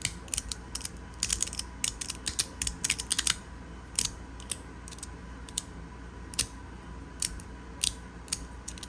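Magnetic fidget slider clicking as its plates are slid and snap together, its fat, hollow body making the clicks easy to hear. Sharp, irregular clicks come in quick clusters for the first three seconds or so, then sparser single clicks follow.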